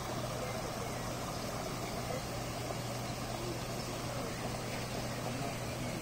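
Steady outdoor rushing ambience with a constant low hum and faint distant voices of people talking.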